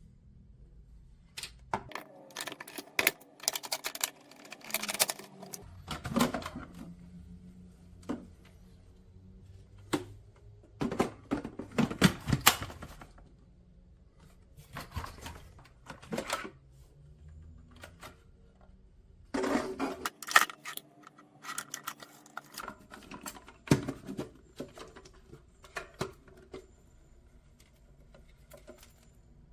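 Irregular clicks and knocks of objects being handled, coming in clusters a few seconds apart with quieter gaps between.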